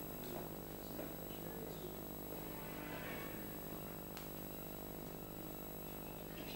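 Steady electrical mains hum with a few faint clinks of a serving utensil against a pot and dishes.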